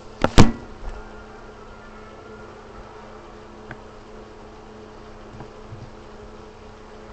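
A steady buzzing hum, with two sharp knocks about half a second in, the loudest sound, and a few faint clicks later.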